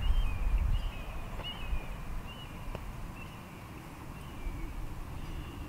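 Wind buffeting the microphone, strongest in the first second, with a bird singing short repeated chirping phrases in the background, about two a second, that fade out near the middle. A single faint click about halfway through.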